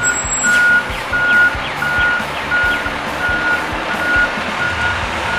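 Vehicle backup alarm beeping steadily, one single-pitched beep about every 0.7 seconds, heard over background music with a regular beat.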